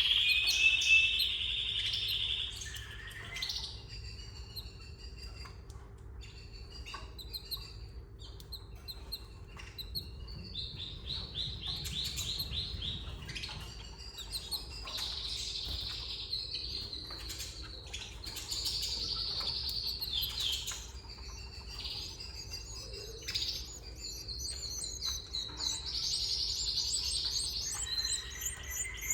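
Canaries chirping and singing in high, rapid trills, with a held whistled note at the start and trilled phrases repeating through the rest.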